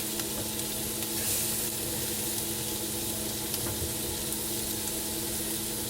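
Ground beef sizzling in a frying pan, a steady hiss, with a few light clicks of a whisk stirring milk and flour in a pot. A steady low hum runs underneath.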